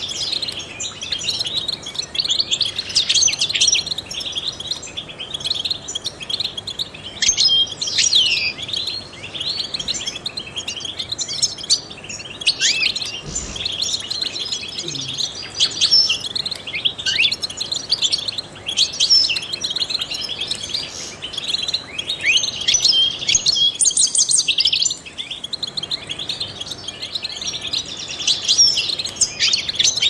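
European goldfinch singing: a continuous run of quick, twittering chirps and short trills with rapid up-and-down pitch slides.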